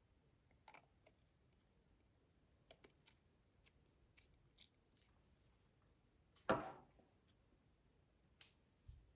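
Quiet, scattered clicks and small handling noises from objects being handled, with one louder sound lasting about half a second around six and a half seconds in.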